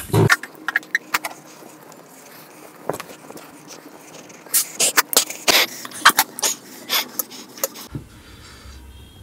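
Close-miked mouth sounds from eating spicy noodles: a run of irregular sharp clicks and smacks, thickest from about four and a half to seven and a half seconds in.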